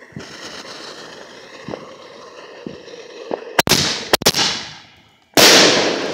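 Fireworks going off up close: a fizzing hiss with scattered small pops, then two sharp bangs at about three and a half and four seconds, and a louder blast near the end that dies away slowly.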